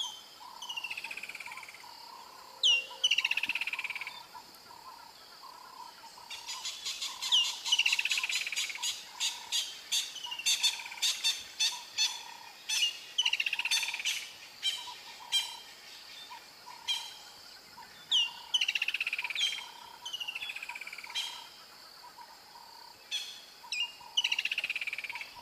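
Birds calling in woodland: a clear whistle that slides downward, repeated every second or two, over a steady, lower pulsing call. Through the middle stretch a fast run of sharp clicks joins in.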